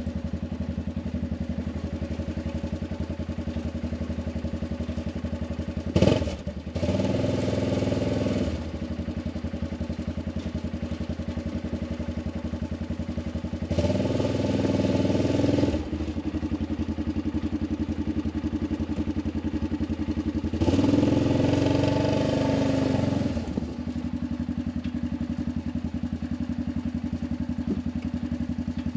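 Arctic Cat 500 ATV engine running steadily at idle, revved up three times for two to three seconds each: about six seconds in, near the middle, and about two-thirds of the way through. The engine is running again after its no-crank fault from a dead battery was fixed.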